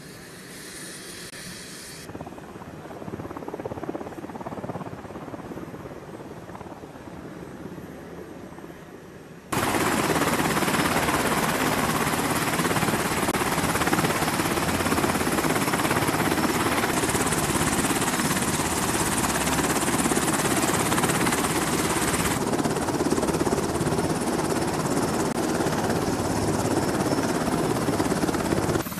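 Steady rushing noise of aircraft engines running on an aircraft carrier's flight deck. It jumps suddenly much louder about a third of the way in and shifts in tone a couple more times later.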